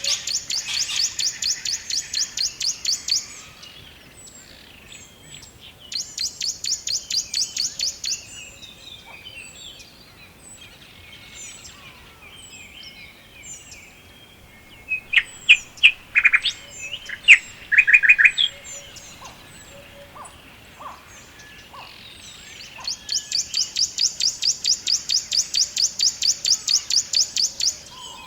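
Forest songbirds singing. A rapid trill of quick, evenly repeated high notes sounds three times, each lasting a few seconds. A louder run of sharper, lower notes comes in the middle, over scattered faint chirps from other birds.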